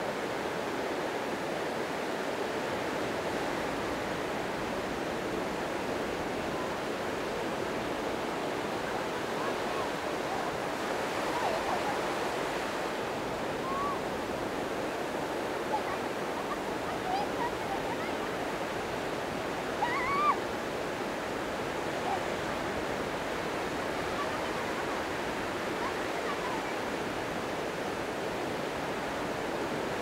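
Gentle surf: small waves breaking and washing up a sandy beach in a steady hiss. Over it come a few faint, brief high sounds that rise and fall in pitch, the clearest about twenty seconds in.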